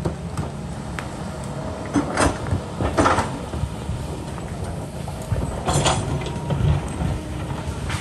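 Kobelco excavator's diesel engine running steadily under work, with three short scraping noises about two, three and six seconds in, the middle one the loudest.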